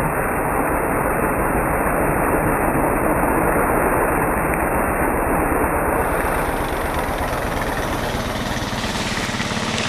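Honda ATV engine running as the quad rides along a rough, muddy trail, heard as a steady, dense rumble from a camera riding on the vehicle.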